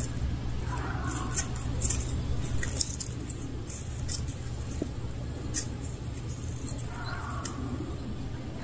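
Outdoor ambience: a low steady rumble with a handful of short, sharp crackles of dry leaves scattered through it.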